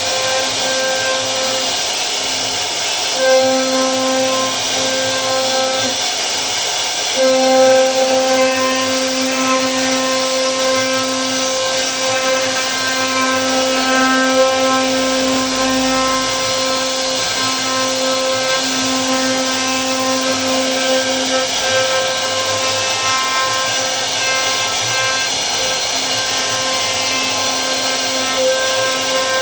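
CNC router spindle cutting wood: a steady whine over constant cutting noise, the whine dropping out briefly and returning every few seconds as the bit works.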